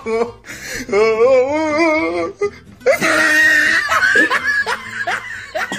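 A man's drawn-out, wavering groan after swallowing a raw egg whole, then a harsh gagging retch about three seconds in, followed by short laughing breaths.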